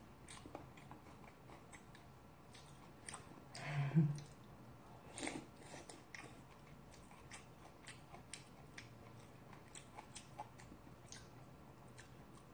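Soft chewing and mouth sounds of someone eating bean sprout soup with rice, with scattered small clicks throughout and one louder mouthful about four seconds in.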